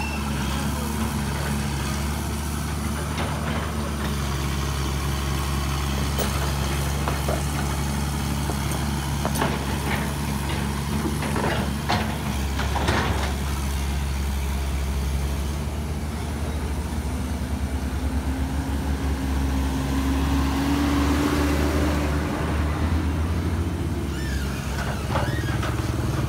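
Diesel engine of a Caterpillar tracked excavator running steadily while it digs, with a few knocks about ten to thirteen seconds in and the engine note rising about two-thirds of the way through.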